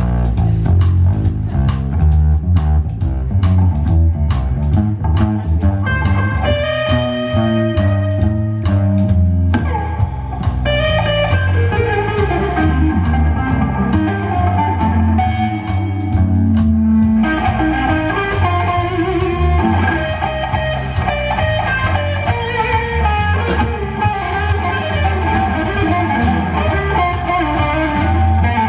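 Rockabilly band playing an instrumental break: a hollow-body electric guitar plays lead lines over an upright double bass. Sharp clicking bass strokes stand out in the first few seconds, before the guitar's melody takes over.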